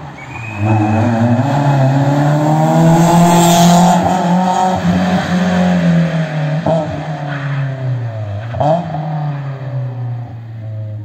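Rally car engine revving hard through the gears as it races past and pulls away. It is loudest about four seconds in, then the pitch drops and climbs again, with two sharp cracks later on.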